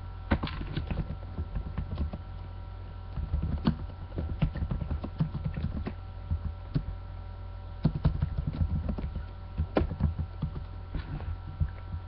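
Irregular clusters of soft low thumps and clicks close to the microphone over a steady electrical hum.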